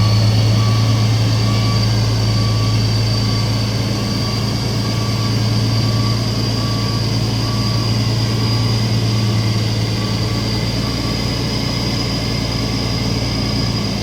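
CAMC truck's CM6D28 diesel engine idling steadily after repair, with a steady high whine over it and a short beep repeating about once a second.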